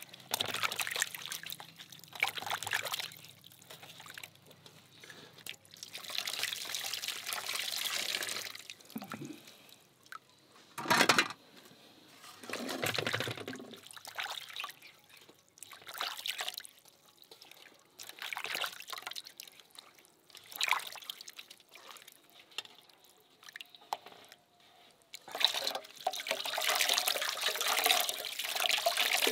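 Water trickling and splashing in short, irregular spells, with one sharp knock about eleven seconds in.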